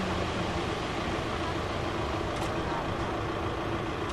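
Steady outdoor rumble and hiss, with faint distant voices now and then.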